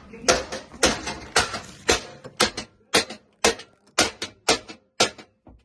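A steady rhythm of sharp taps or claps, about two a second, some of them doubled.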